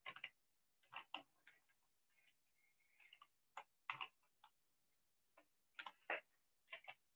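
Faint, irregular light clicks, about a dozen, several in quick pairs, with gaps of up to a second between them.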